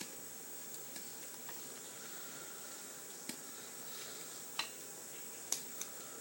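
A few faint clicks and taps of a plastic action figure's parts being folded and pushed into place, over a steady background hiss.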